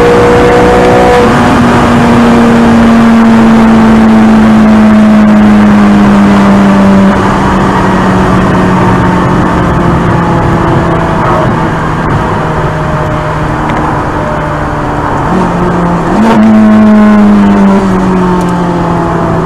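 Ferrari 430 Scuderia's 4.3-litre naturally aspirated V8 heard from inside the cabin, running loud with a steady drone whose pitch slowly sags as the revs fall, easing a little about seven seconds in. About sixteen seconds in there is a sharp crack and the revs jump up, then sag again.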